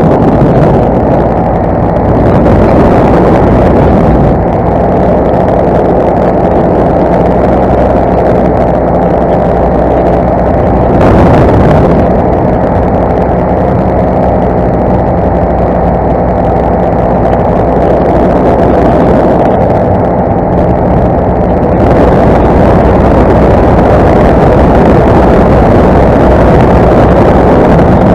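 Paramotor's two-stroke engine and propeller droning steadily in flight, with a brief louder swell about eleven seconds in.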